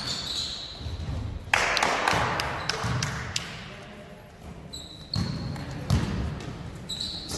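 Basketball game on a hardwood gym floor: a ball bouncing, sneakers squeaking and players' voices calling out, with a sharp bang about one and a half seconds in that rings out briefly.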